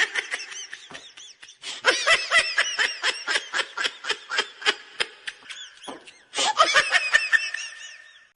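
A person laughing: a long run of short, high-pitched giggles, about four or five a second, with a brief pause about six seconds in.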